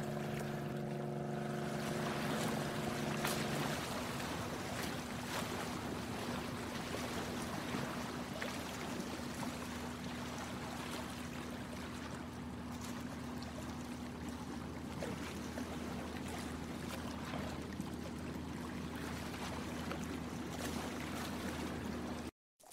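Boat motor running steadily, most of its tones dropping away in the first few seconds to leave a low steady hum, over water lapping and splashing. The sound cuts off suddenly near the end.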